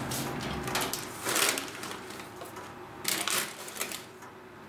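An oven's wire rack and a springform pan on baking paper being handled as the pan is set into the oven: rattling and paper crinkling in three short bursts.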